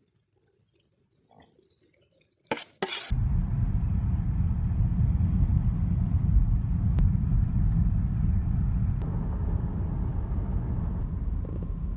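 Water rushing loudly and steadily. It starts abruptly about three seconds in, right after two short loud bursts.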